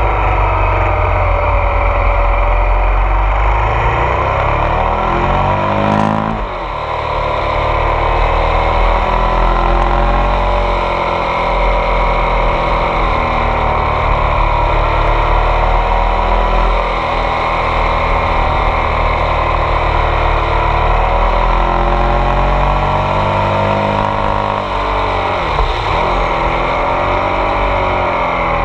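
Ducati Multistrada 1200 S DVT's 1198 cc Testastretta V-twin running under way, heard close from a bike-mounted camera, its note rising and falling with the throttle through the bends. The revs fall sharply about six seconds in and again near the end, then climb again.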